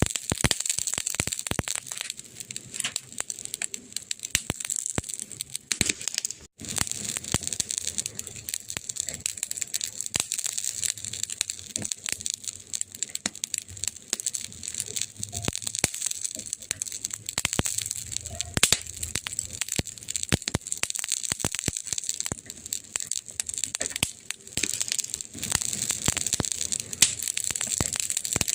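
Fire crackling: dense, irregular pops and snaps over a steady hiss, with a brief break about six seconds in.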